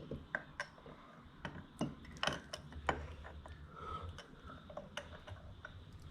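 Faint, irregular small metal clicks and taps as a two-stroke piston and cylinder are handled and fitted, with the piston rings pinched by hand into their grooves.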